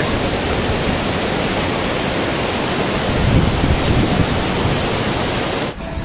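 Steady loud rush of water from a man-made waterfall cascading down concrete steps, cutting off suddenly near the end.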